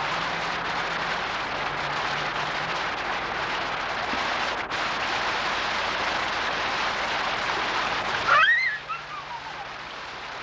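Fountain jets splashing steadily into a brick basin. About eight seconds in a brief high squeal rises and falls, the loudest sound here, and the splashing is quieter after it.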